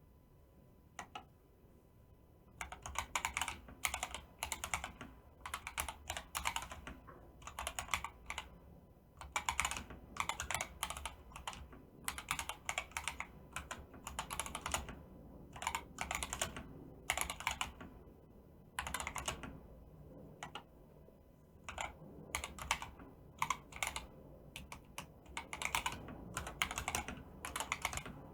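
Fast typing on a mechanical keyboard with PBT keycaps and unlubed Akko CS Jelly Pink linear switches: quick runs of keystrokes with short pauses between words and phrases, after a couple of lone key presses at the start.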